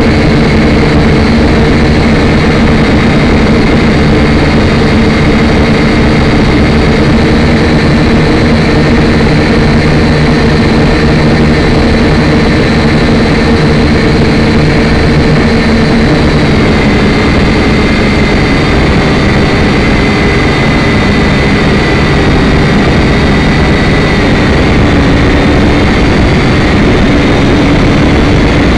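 Syma X5C-1 quadcopter in flight, heard close up through its onboard camera's microphone: the steady whine of its four small brushed motors and propellers over dense rushing noise. The whine's pitch dips slightly about halfway through.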